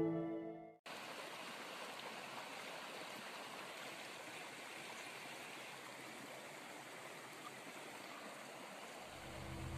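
Steady rushing of a flowing stream, after music dies away in the first second; soft low music comes back in near the end.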